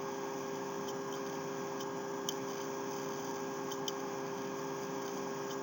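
Steady electrical hum and room tone from the recording setup, with a handful of faint, short clicks spread through it.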